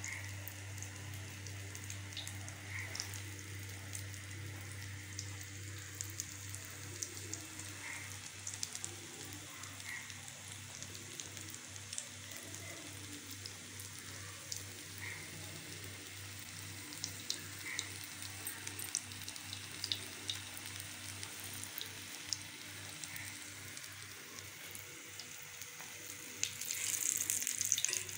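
Hot oil sizzling in a wok on a gas burner, with scattered sharp pops and crackles over a steady hiss and a steady low hum. The hiss grows louder about two seconds before the end.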